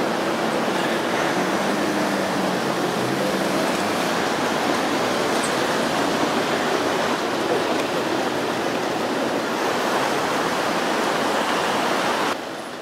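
Loud, steady wash of dense city street and crowd din that cuts off abruptly shortly before the end.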